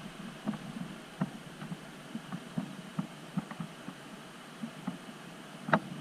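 Scattered, irregular light knocks and clicks over a low, steady rumble, with one louder knock near the end.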